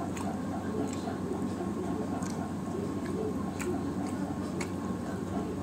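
Close-up eating sounds: scattered wet clicks and smacks of chewing and of fingers working rice and fish curry on a steel plate, over a steady hum with a soft regular ticking.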